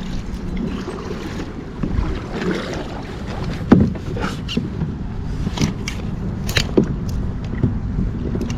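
Steady low wind rumble on the microphone and water around a small boat, with a few sharp knocks, the loudest about four seconds in.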